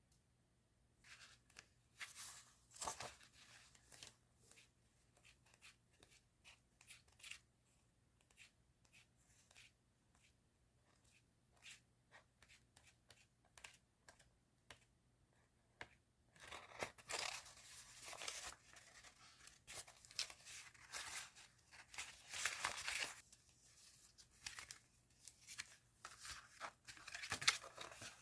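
Paper and plastic stationery packaging crinkling and tearing as it is handled, in short irregular bursts that grow busier past the middle.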